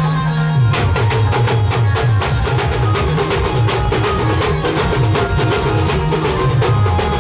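Timli band music: a bass line stepping up and down under dense, fast drumming and percussion that comes in about a second in.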